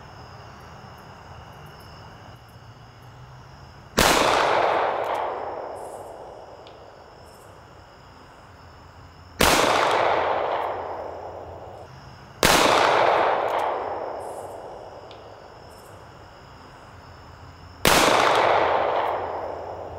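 Four single shots from a SIG Sauer P220 .45 ACP pistol, a few seconds apart, each a sharp crack followed by a long echo that fades over two to three seconds.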